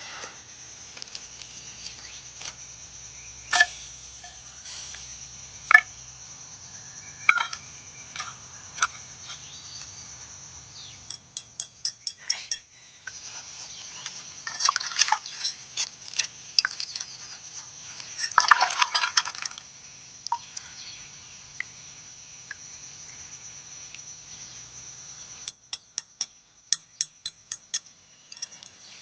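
Light metallic clinks and taps, scattered at first, with short runs of quick ticks about eleven seconds in and again near the end, and two short scraping stretches in between, over a steady high hiss.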